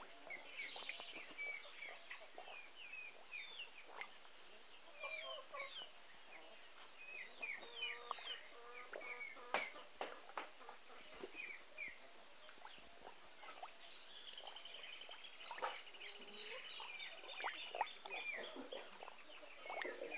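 Farmyard birds calling: chickens clucking among many short chirps, with a quick trill about two-thirds of the way through. A few short, sharp clicks sound in between, the loudest near the middle.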